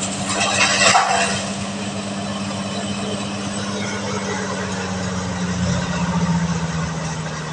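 Engine of a silage harvester rig running steadily, with a rushing noise over it in the first second. Its pitch drops slightly about six seconds in.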